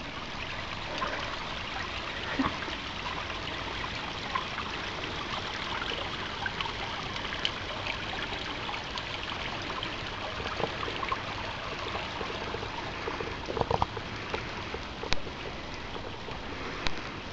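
A small woodland stream trickling and babbling steadily. Scattered sharp clicks and snaps sound over it, with a short cluster about two-thirds of the way through.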